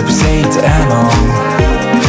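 Background music: an instrumental pop track with a steady, deep beat and no vocals.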